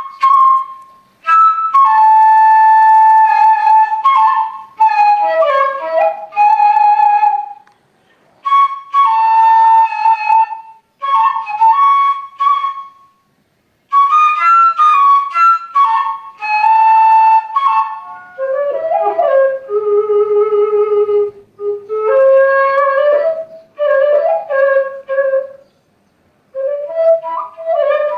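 Sundanese bamboo suling flute playing an unaccompanied, plaintive melody in short phrases with held notes and quick ornamental turns, pausing briefly between phrases. About two-thirds of the way through, the melody drops into a lower register for several phrases.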